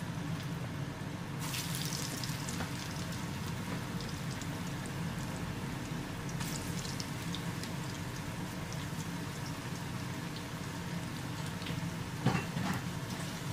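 Batter-coated potato fries deep-frying in hot oil, with a steady, busy sizzle and crackle of bubbling oil that gets brighter about a second and a half in. A brief knock sounds near the end.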